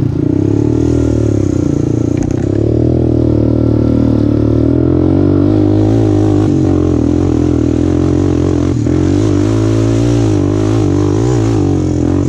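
Utility ATV engine running under load while riding a rough trail, its pitch rising and falling with the throttle.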